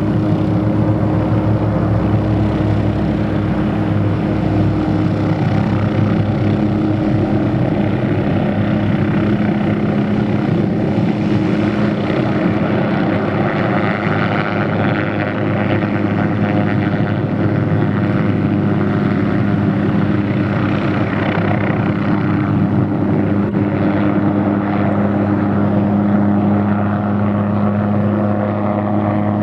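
Hughes 369HS light turbine helicopter running for takeoff. Its rotor beat and turbine are loud and steady, with no big change in pitch.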